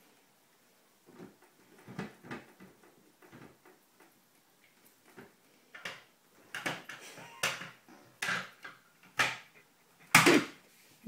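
Small hands slapping and patting the front of a stainless-steel dishwasher: a string of short, irregular knocks that come more often and louder after the middle, the loudest about ten seconds in.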